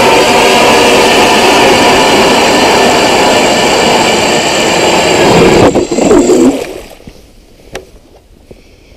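StrikeMaster Lithium 40V battery-powered ice auger drilling a hole through lake ice: a loud, steady motor whine. The sound changes briefly about six seconds in, and the motor stops just before seven seconds.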